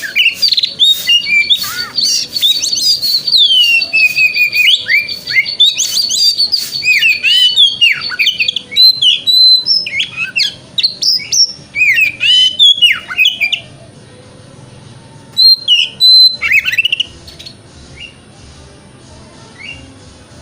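Oriental magpie-robin (kacer) singing: a loud, fast run of varied whistles, sweeping notes and sharp clicks that breaks off about 13 seconds in. One short burst follows a couple of seconds later, then only faint calls.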